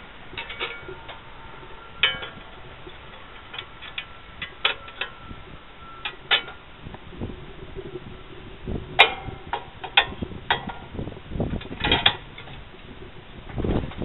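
Scattered sharp metallic clinks and taps from a wrench and bar working the nut on the steel circular saw blade of a portable sawmill, some leaving a brief ring, with duller knocks near the end.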